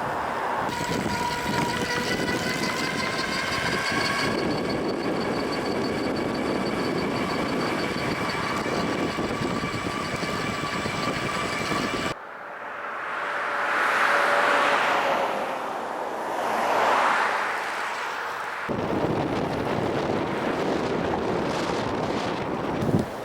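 Wind and road noise from a ride on a Swagtron EB-5 folding electric bike, with a whine slowly rising in pitch for the first twelve seconds. After a sudden change, two passing vehicles swell and fade, the second a few seconds after the first, then steady wind and road noise returns.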